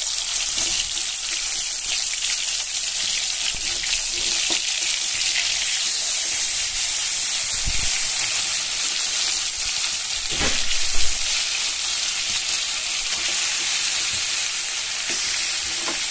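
Marinated chicken pieces sizzling in hot oil in a metal kadai as they are added by hand: a steady high frying hiss, with a couple of dull knocks about halfway through as pieces land in the pan.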